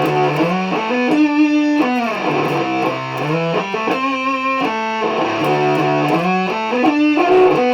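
Electric guitar played through a Tone Bender MK 1.5 germanium-transistor fuzz pedal with both its volume and fuzz knobs turned fully up: a loud, sustained fuzz tone, with held notes and slides up and down the neck between them.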